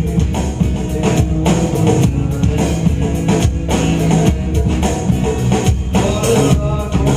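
Live band music during a sound check: drum kit keeping a steady beat under guitar and held instrumental notes, without singing at this point.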